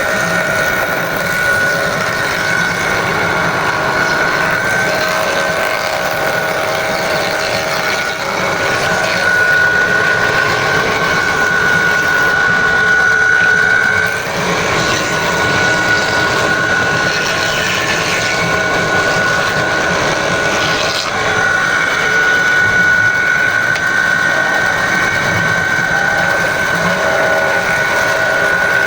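Woodworking machine running steadily with a high, even whine over a dense rush of noise, loud throughout, with a brief dip about fourteen seconds in.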